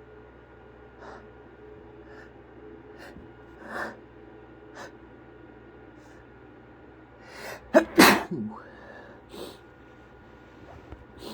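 A man sniffling several times, then taking quick catching breaths and sneezing loudly about eight seconds in, followed by more sniffs.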